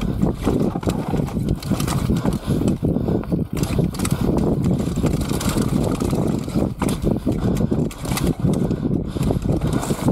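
Mountain bike descending a dirt trail: rushing wind on the mic with tyre roar, and frequent knocks and rattles from the bike over bumps.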